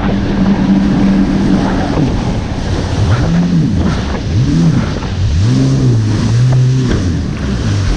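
Jet ski engine running, its steady tone dropping away about two seconds in, then rising and falling in pitch several times as the throttle is worked before settling again, over constant wind and water noise.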